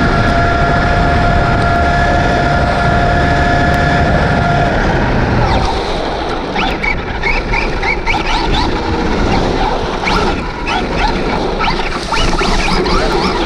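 Onboard sound of a Traxxas Rustler 4x4 RC truck on a 3S LiPo with a Castle SW4 brushless system. For about the first five seconds the motor gives a steady whine over heavy wind and road rumble. Then the rumble drops away, and quick short squeals and chirps come and go as the truck slows and turns.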